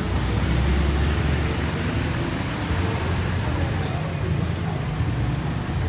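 Motor vehicle noise: a steady low rumble with a wash of road noise.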